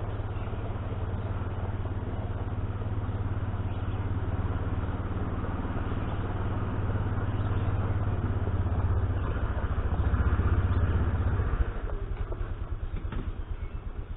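A vehicle engine running steadily, then settling about three-quarters of the way through into a slow, evenly pulsing idle.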